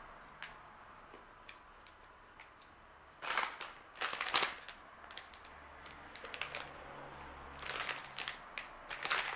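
Quiet crunching of crisp cocoa cantucci being chewed, then a paper snack bag crinkling and rustling as it is handled, in two spells: about three seconds in and again near the end.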